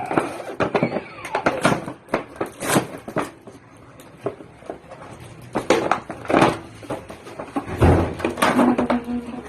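Toy packaging and plastic toys being handled and opened: a run of irregular clicks, taps and rustles.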